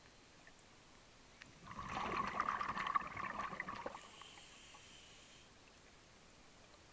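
Scuba diver breathing out through the regulator underwater: a burst of bubbling for about two seconds, then a faint hiss as the next breath is drawn.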